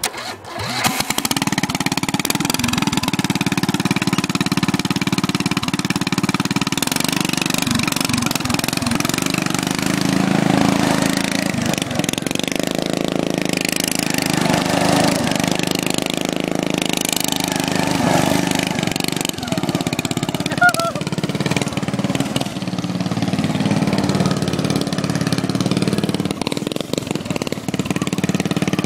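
Racing lawnmower engine running hard, its pitch rising and falling as the throttle changes; it comes in suddenly just under a second in.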